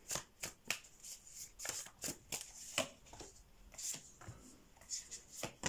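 Tarot cards being handled and laid out on a cloth-covered table: an uneven run of short card snaps and slaps.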